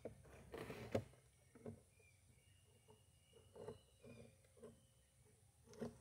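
Mostly near silence with a few faint, short taps and scrapes, the loudest about a second in, as the tip of a Power Probe 4 circuit tester is worked against the pins of a 12-pin transmission wiring connector.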